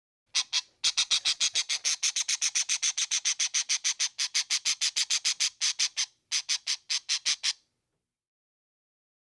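An animal calling in a fast run of short, high, evenly spaced notes, about six a second, with a brief break a little after six seconds, stopping about a second and a half before the end.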